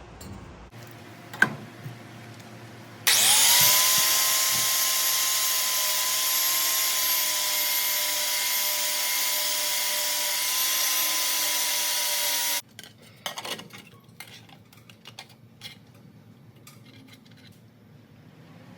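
High-speed rotary grinder spinning up about three seconds in, running at a steady whine for about nine seconds, then cutting off suddenly, followed by light scrapes and clicks. It is grinding down a warped exhaust sealing surface to cure an exhaust leak.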